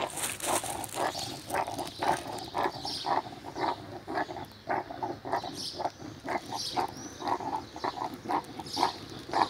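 Dog making short, rhythmic grunting sounds with its breathing, about two a second, in a dog presented as rabid.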